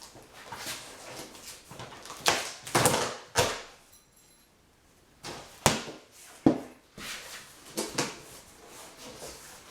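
Irregular clattering knocks and rustling, with a few sharp loud knocks between about two and seven seconds in.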